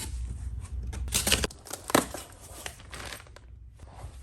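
Rustling and handling noises with a sharp knock about two seconds in and a few smaller clicks, over a low rumble.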